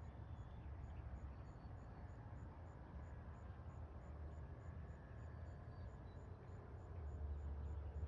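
Quiet outdoor garden ambience: a steady low rumble that grows a little louder near the end, with a faint high chirp repeating evenly about four times a second.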